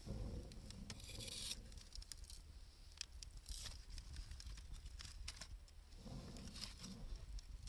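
Wood fire of 2×4 lumber and scrap wood burning, crackling with many irregular sharp pops. A low rumble comes at the start and again about six seconds in.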